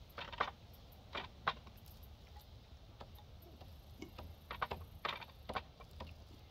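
Irregular light clicks and taps, about a dozen scattered in small clusters, over a faint low rumble.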